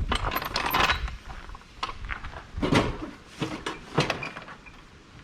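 Metal clinking and clanking: a quick flurry of clinks in the first second, then three separate knocks over the next few seconds.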